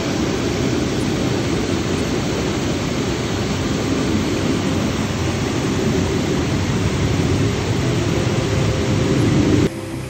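Steady, loud rush of a small waterfall and mountain stream, dropping off suddenly near the end.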